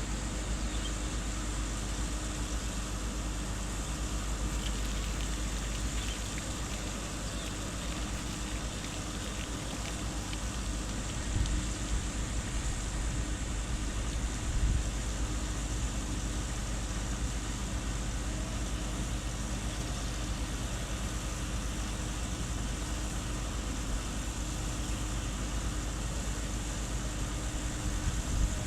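Steady low drone of a ship's engines running during berthing, with a constant hum under a broad wash of noise and a couple of brief louder bumps near the middle.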